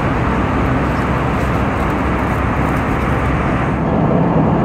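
Steady, loud rumble of an Airbus A320's CFM56 jet engines and rushing air heard inside the passenger cabin, its tone shifting slightly near the end.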